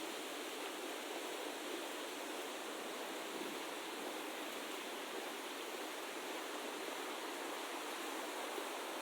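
Steady, even rushing noise of outdoor ambience, with no low rumble and no separate sounds standing out.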